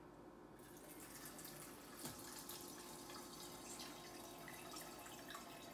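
Hot bone broth poured from a stainless steel Instant Pot inner pot into a mesh strainer over a stockpot: a faint, steady trickle and splash that starts about half a second in, with one light knock about two seconds in.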